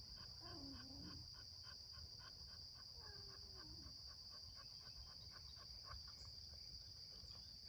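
Faint, quick rhythmic panting of a dog tired from exercise, about three to four breaths a second, over a steady high drone of insects.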